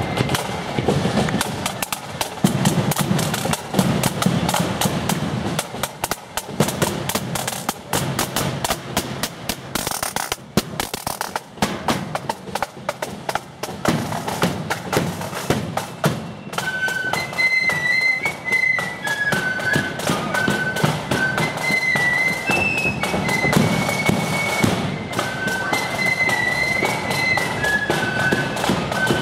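A marching flute band playing: snare and bass drums beat out a brisk rhythm alone for the first half, then the flutes come in with a high melody a little past halfway, over the continuing drums.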